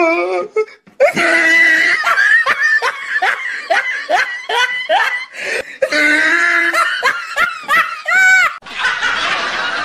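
A person laughing hard: a long run of quick, loud bursts of laughter, ending in a high squeal of laughter near the end.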